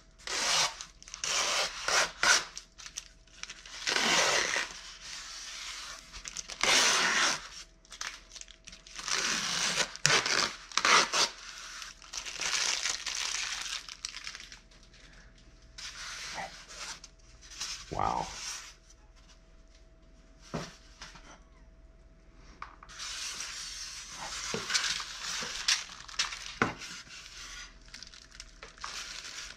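Styrofoam shipping box being handled and opened: foam lid and insert rubbing, with plastic wrapping crinkling, in irregular bursts with pauses and a single knock partway through.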